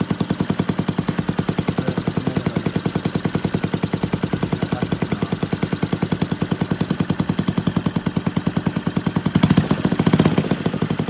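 Scooter engine idling with a fast, even putter, rising briefly in a short surge about nine and a half seconds in.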